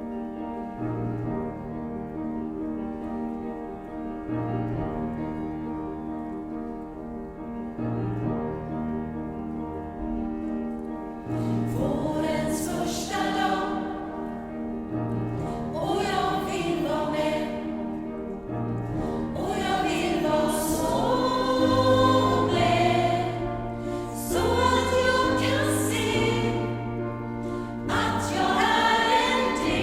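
Gospel choir singing with accompaniment. The first ten seconds or so are an instrumental introduction of held chords with a low note changing every few seconds. The choir's voices come in about eleven seconds in and grow louder.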